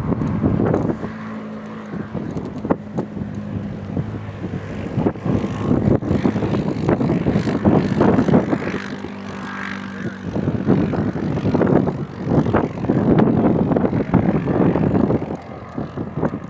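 Engine of an off-road vehicle running on the sand dunes, a steady low drone with louder rough stretches as it rises and falls.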